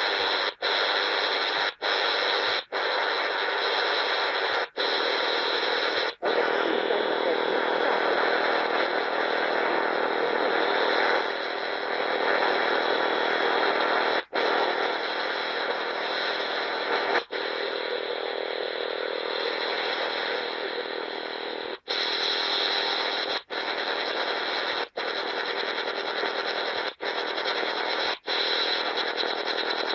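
Harsh, rasping wideband noise signal on the 10 MHz shortwave band, heard through the speaker of a Tecsun PL-360 portable radio in AM. It runs continuously, broken by short dropouts at irregular intervals. The listener suspects it may be a Russian radar.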